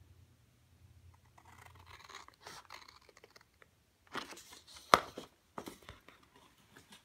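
Scissors cutting through cardstock: a quiet crackling cut, then sharp snips about four and five seconds in, with a couple more shortly after.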